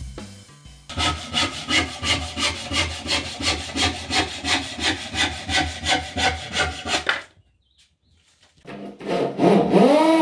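Hand saw cutting a wooden plank in quick, even strokes, about three a second. After a short pause, a corded electric drill whirs up with a rising whine near the end.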